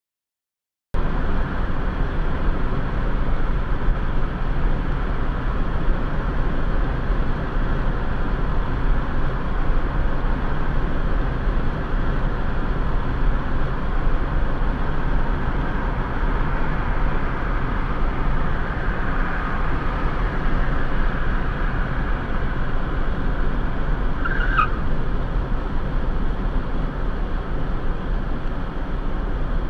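Steady road and engine noise heard from inside a moving car's cabin, starting about a second in. A brief high squeak sounds about three-quarters of the way through.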